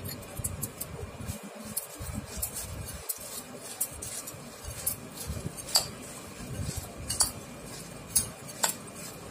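Metal spoon stirring chanachur into puffed rice in a glass bowl: the dry mix scraping around, with irregular clinks of the spoon against the glass.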